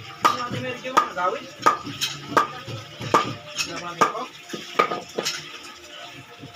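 A wooden club hammering the back of a large knife blade to cleave through a blue marlin's body. About a dozen sharp knocks come at irregular intervals of roughly half a second, each with a brief ring, and they stop about five seconds in.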